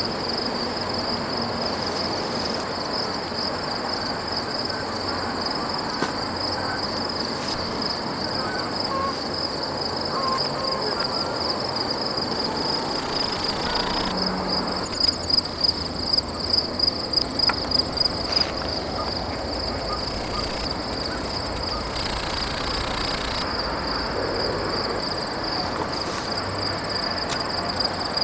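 Crickets trilling steadily in a high, pulsing chorus over a steady noisy background. About halfway through comes a quick run of about a dozen louder pulses, roughly three a second, lasting three or four seconds.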